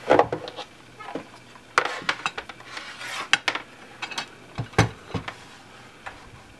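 Handling noise on a hard countertop: a scatter of light clicks and clinks as the charge-lead cables and a battery charger are moved about, with a heavier knock a little under five seconds in.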